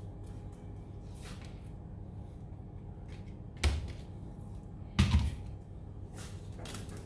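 Two sharp knocks about a second and a half apart, the second louder, with a few short scraping sounds around them, over a steady low hum: kitchen items handled and set down on a counter while fish is being seasoned.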